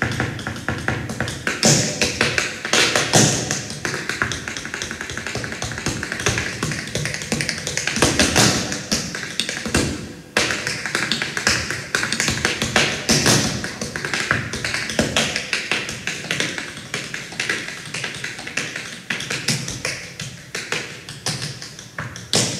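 Tap shoes' metal taps striking a stage floor in fast, dense rhythmic runs of tap-dance steps, with a brief break about ten seconds in.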